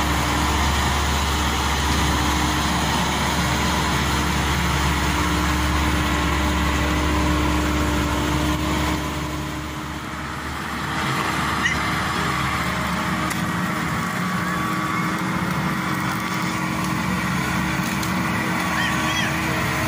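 Maxxi Bimo 102 combine harvester's diesel engine running steadily under way. About halfway through the sound dips briefly and then carries on with a lighter, less rumbling tone.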